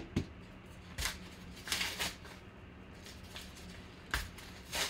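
Hands crinkling and tearing open a heavy-duty yellow paper envelope: scattered paper crackles, with a longer rustling tear about two seconds in.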